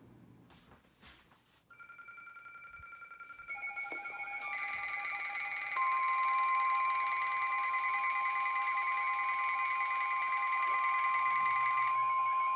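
Emergency alert tones: several steady electronic tones come in one after another from about two seconds in, and a louder single steady tone joins about six seconds in, held as one combined alarm. Right at the end a warbling siren tone starts.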